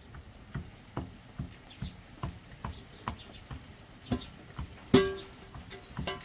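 Wooden pestle pounding in a steel mug, with steady knocks about two and a half a second. About five seconds in, a metal pot lid clangs once, ringing briefly.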